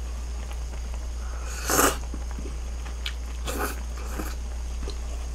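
A person slurping and eating glass noodles with beef bulgogi dipped in egg: one loud slurp about two seconds in, then two shorter, softer mouth sounds. A low steady hum runs underneath.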